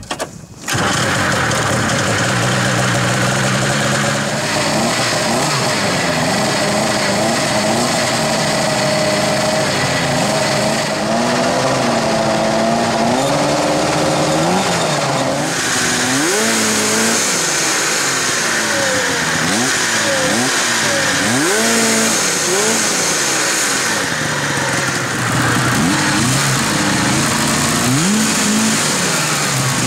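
Vintage snowmobile's two-stroke engine running, then revved over and over in the second half, its pitch rising and falling with each blip of the throttle.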